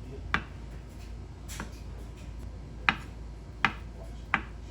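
Five short, sharp clicks and knocks of kitchenware being handled, spaced irregularly, over a low steady hum.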